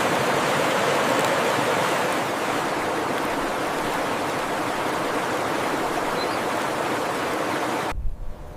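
Steady rushing of flowing water, as of a stream, cutting off abruptly near the end.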